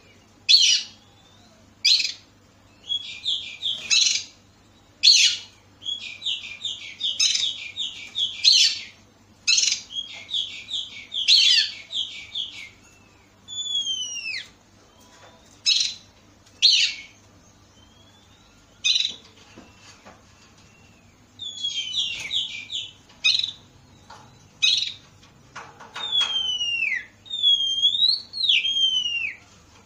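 Oriental magpie-robin singing: high phrases of sharp chips and fast rattling trills, broken by short pauses. Near the end it adds several clear, falling whistles.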